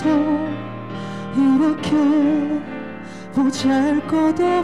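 A slow ballad: one voice singing long, held notes that waver slightly, over steady musical accompaniment.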